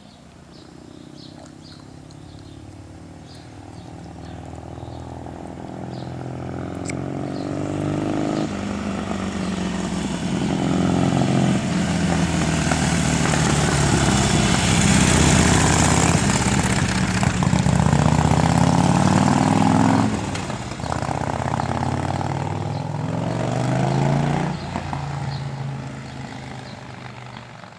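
2015 Harley-Davidson Sportster Seventy-Two's air-cooled 1200 cc V-twin running through Miller Silverado aftermarket exhaust as the bike accelerates past. The engine note climbs in pitch through the gears with three upshifts, grows loud as the bike comes by, then fades away.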